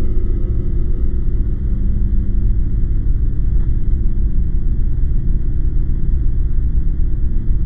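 A loud, steady, deep low rumble with no clear beat or breaks: an ambient drone under the alien footage.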